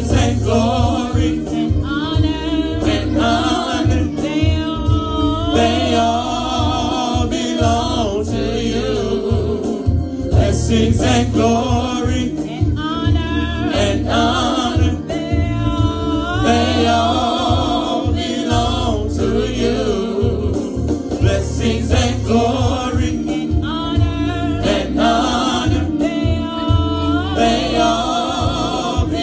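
Gospel worship song sung by a small praise team of men's and women's voices into microphones, over a sustained low instrumental accompaniment.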